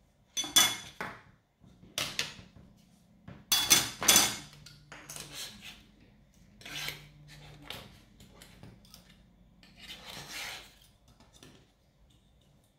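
Metal scraper blades clattering and ringing as they are set down on a wooden desk, several sharp hits in the first four seconds or so. Then softer scraping and rubbing as tools are handled around the print and the print bed.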